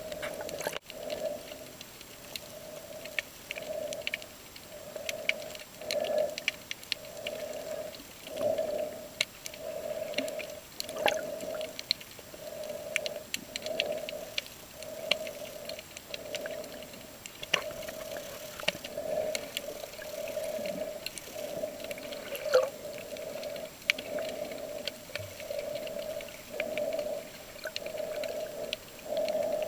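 Underwater sound picked up by the camera: a steady pitched hum that pulses a little over once a second, with scattered sharp clicks and crackles.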